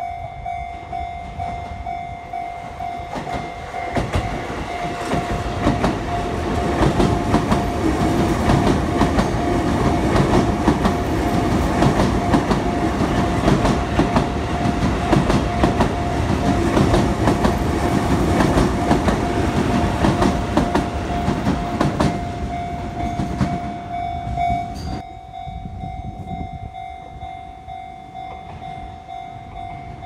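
A Sotetsu Line electric commuter train passes at a level crossing, its wheels clattering over the rails. The noise builds a few seconds in and fades near the end. The crossing's warning bell rings steadily throughout.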